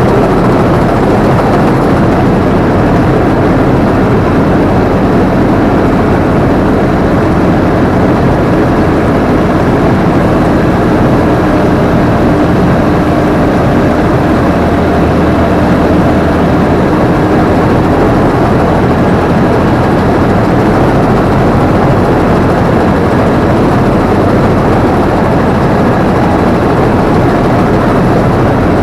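Combine harvester running steadily under load, its engine and threshing machinery making a loud, unbroken drone heard from the operator's seat.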